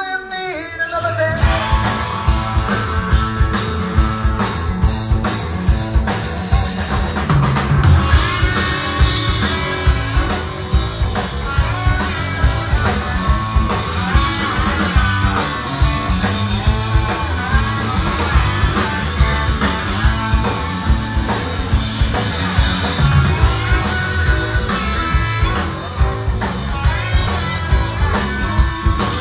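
Live rock band playing an instrumental passage: electric guitars, bass guitar and drum kit. A held chord dies away and the full band comes in about a second in, with a steady drum beat under the guitars.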